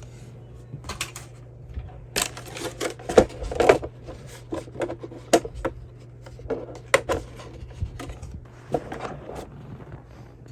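Irregular clicks, taps and rattles of small plastic and metal RC truck parts being handled and fitted by hand, over a steady low hum.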